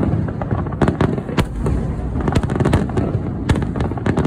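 Starmine fireworks barrage: a dense, rapid run of shell bursts and crackling reports over a continuous low rumble, with especially sharp cracks about a second and a half in and again near three and a half seconds.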